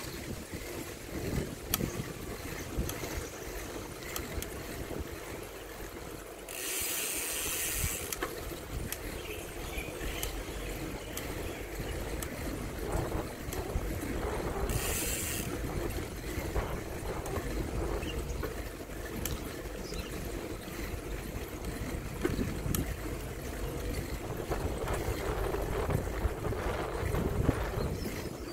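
Bicycle ridden along a paved path, heard from the bike: a steady low rumble of tyres and wind with light rattling clicks. Two short bursts of hiss come about a quarter of the way in and again about halfway.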